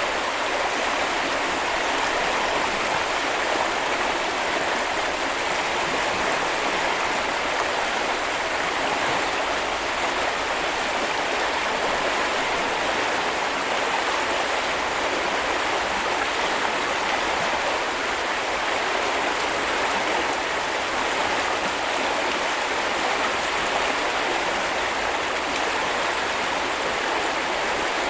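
Small river or brook flowing over stones: a steady rushing and splashing of running water.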